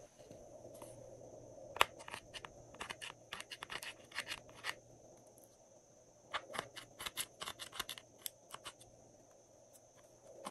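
Metal spatula scraping and picking pressed eyeshadow out of a palette's pans, in two runs of quick scratchy strokes, the second starting a little past the middle.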